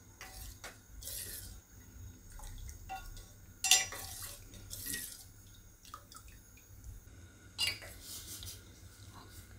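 A metal spoon stirring thin dal in a stainless steel pot, scraping and clinking against the pot's sides as the liquid swishes. The sharpest clinks come just under four seconds in and again near the end.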